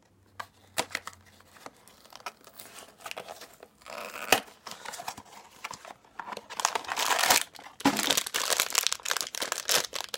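Small cardboard blind box being opened by hand with a few light clicks and scrapes, then a foil bag crinkling and tearing as it is handled and opened, louder and denser in the second half.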